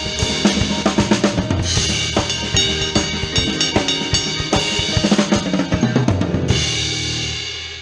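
Drum kit playing with a theatre pit band: busy bass drum and snare hits with cymbal crashes. The hits stop after a last crash about six and a half seconds in, which rings on and fades as the music ends.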